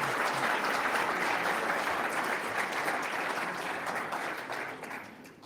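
Audience applauding, holding steady and then dying away near the end.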